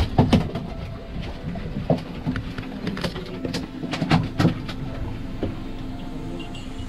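Steady low mechanical hum of the fishing boat's machinery, with scattered sharp knocks and clatter of gear being handled on deck, several in quick succession near the start and again around three to four seconds in.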